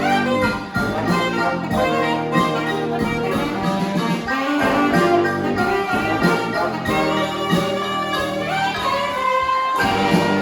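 Brass band playing live, many horns sounding together in a dense, steady ensemble, with one high horn note held near the end.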